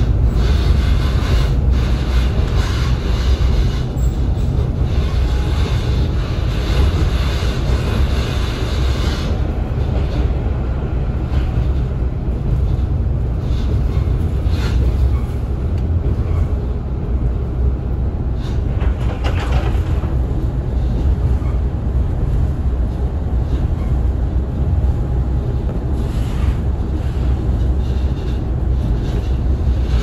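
Interior sound of a KiHa 40 diesel railcar under way: a steady low rumble of its diesel engine and wheels running on the rails, with more hiss in roughly the first nine seconds that then eases.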